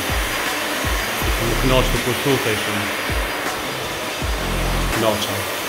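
Background music with low bass thumps and a melody, over a steady rushing noise.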